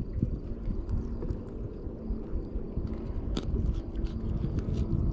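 Wind buffeting the microphone with a faint steady hum underneath, and scattered small clicks and taps, one sharper click about three seconds in.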